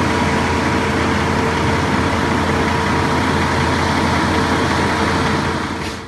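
Concrete boom pump truck's diesel engine running steadily under load, with a constant whine over the engine noise. It cuts off suddenly near the end.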